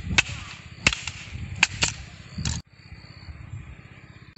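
A wooden stick striking the ground: a run of sharp whacks, four or five in the first two seconds, then a short louder scuffle before the sound cuts off suddenly to a quieter background.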